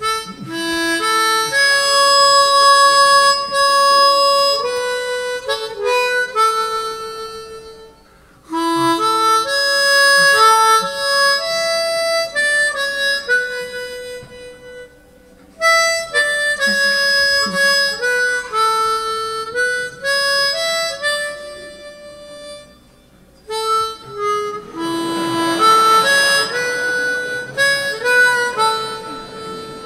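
Harmonica playing a tune of held notes, often several sounding together, in four phrases with short breaks between them.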